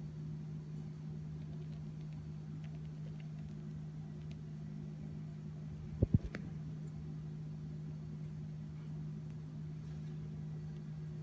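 A quick sneeze, two or three sharp little bursts in a fraction of a second about six seconds in, over a steady low hum.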